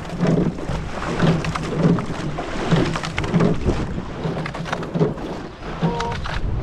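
Quad scull rowing off from a standing start: the oar blades splash in and out of the water and the oars thump in their oarlocks, in a quick, uneven run of beats, over a steady rush of water against the hull.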